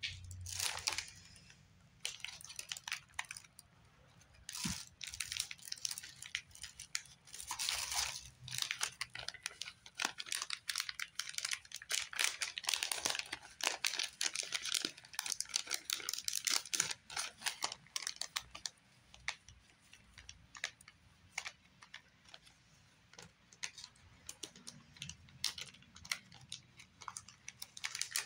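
Clear plastic packaging crinkling and rustling as packs of paper die-cuts and stickers are handled, opened and slid back into their sleeves, with light clicks of card pieces. The rustling comes in bouts and is busiest through the middle.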